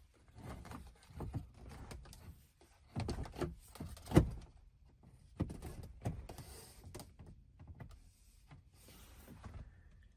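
Double-DIN car stereo head unit being pushed and worked into the truck's dash opening: irregular scraping and knocking of the unit against the dash, with a sharp knock about four seconds in.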